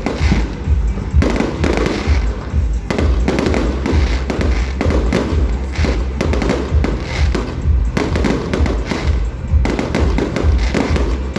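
Fireworks display: a continuous barrage of shells bursting in quick succession, deep thuds mixed with sharp bangs and crackle.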